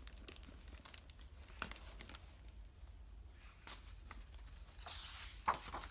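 Faint paper rustling and a few soft taps as the pages of a picture book are turned, with a short louder rustle near the end.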